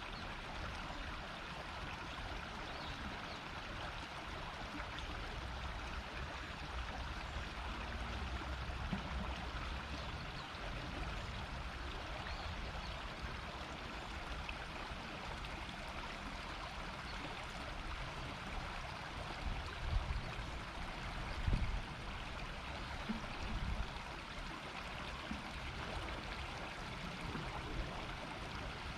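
A river murmuring steadily as shallow water runs along its bed. A few brief low thumps come about two-thirds of the way through.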